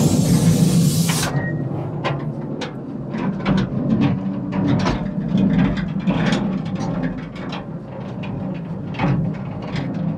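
Small narrow-gauge steam locomotive hissing steam for about the first second. Then comes the ride in its carriage: a steady low rumble with frequent irregular clicks and clacks of the wheels on the track.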